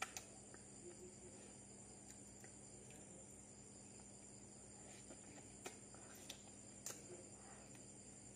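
Near silence with a faint steady hum, broken by a few soft clicks and smacks of lips and mouth as durian flesh is eaten by hand and the fingers are licked.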